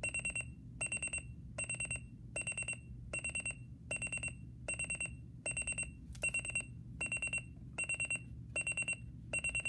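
Sony ICF-C1 alarm clock's buzzer alarm beeping: groups of about four quick high-pitched beeps, repeating a little more than once a second. This is the buzz-mode wake alarm, which beeps faster and gets louder as it runs.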